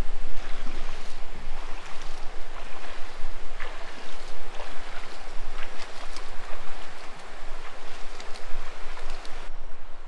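Bare legs wading through a shallow river, water splashing and sloshing with each step.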